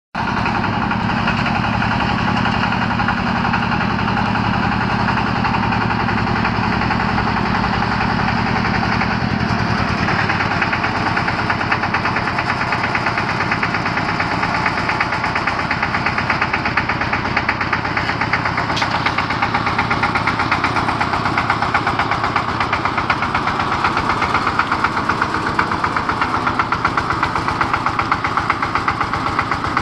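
Diesel engine of a four-wheel self-propelled boom lift running with a rapid, even beat. The beat grows more distinct in the second half.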